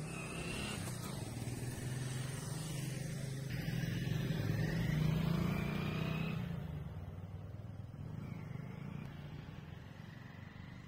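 Motorcycle engines passing on the road: the engine sound builds to its loudest about five seconds in as a loaded bike goes by close, then fades as it rides away.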